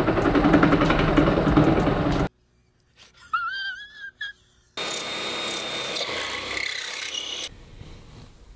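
An RC boat's brushless motor spinning up and shaking hard through an off-centre home-made coupler, then cutting off abruptly. A man's brief whimpering follows, then a drill press boring through a small brass coupler with a steady whine.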